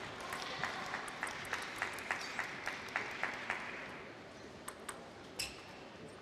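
Spectators applauding with steady rhythmic clapping at about three claps a second, dying away after about four seconds. A couple of sharp clicks follow near the end.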